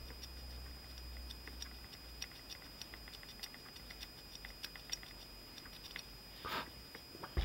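Small metal parts of a dismantled Hahn .45 BB pistol's mechanism giving light, irregular clicks and ticks as they are handled and fitted by hand, with a short rustle about six and a half seconds in and a sharper click at the end.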